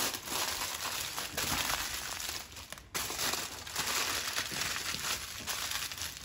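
Aluminium foil crinkling and crackling as hands fold and roll it tightly into a parcel, with a brief pause about three seconds in.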